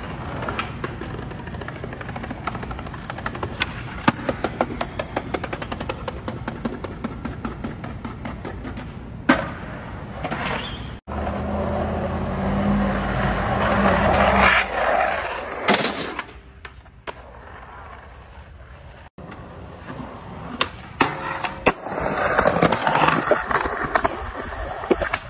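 Skateboard wheels rolling over concrete and pavement, with sharp board pops, clacks and landing slaps. Near the middle a vehicle engine runs steadily for a few seconds.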